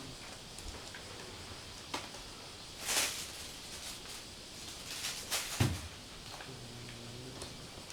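A cat threatening a vacuum cleaner. It gives sharp hisses about three seconds in and again around five seconds, then a thump, then a low drawn-out growl near the end.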